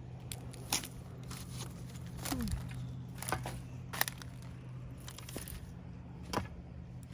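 Irregular crunching footsteps on a shelly, gravelly creek shore, about one step a second, with a short falling sound about two and a half seconds in.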